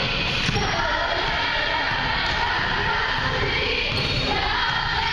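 Music playing over a gym's loudspeakers while basketballs bounce on the court floor in repeated thuds.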